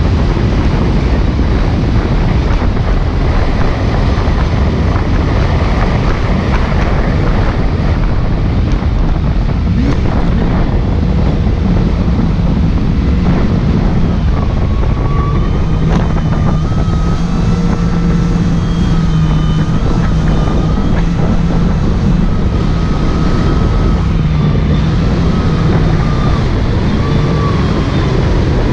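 Kawasaki jet ski running at speed over choppy water, with heavy wind noise on the bow-mounted camera's microphone and the hull slapping through the chop. About halfway through, a steady engine drone with a higher wavering whine comes through as the throttle is held constant.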